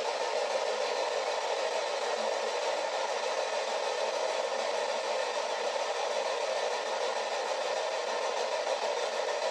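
Spirit box sweeping through radio frequencies, giving a steady hiss of static.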